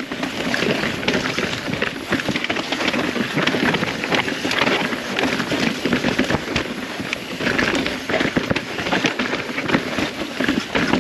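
Mountain bike, a 2021 Rocky Mountain Altitude, descending a rough downhill trail. Its tyres roll over dirt and rocks, and a dense, irregular crackle of small knocks and rattles comes from the bike.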